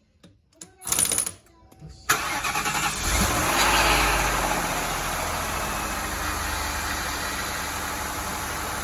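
Lincoln Mark VIII's 4.6-litre DOHC V8 starting. It catches suddenly about two seconds in, rises briefly, then settles into a steady idle.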